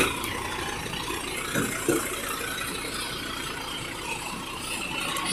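A vehicle engine running steadily, with a low rumble, and a couple of small knocks about two seconds in.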